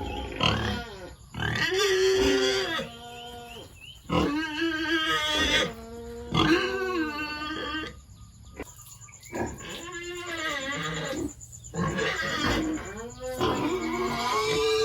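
Pigs squealing: a run of loud, pitched calls, each about a second long, with short breaks between them.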